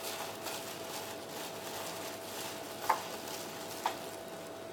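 Plastic-gloved hand pressing and turning squid pieces in dry panko breadcrumbs in a bowl: a soft crackly rustle, with two small sharp clicks about three and four seconds in.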